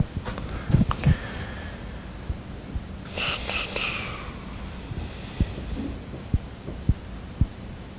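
Dry-erase marker writing on a whiteboard: a scratchy stroke lasting about a second, about three seconds in, and several short dull knocks against the board.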